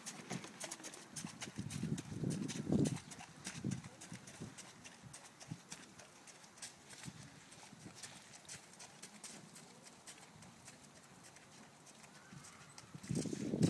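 Hoofbeats of an Irish Draught Sport Horse moving around a wet arena: irregular soft clip-clops that thin out as the horse goes farther off, with short louder bursts of noise about two to three seconds in and again near the end.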